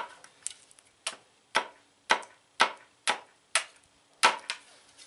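Carpenter's hatchet, modified to the undercut Chicken Hawk pattern, chopping a point onto the end of a sapling stake held on a wooden chopping block: sharp wooden chops about two a second, some eight in all, stopping near the end.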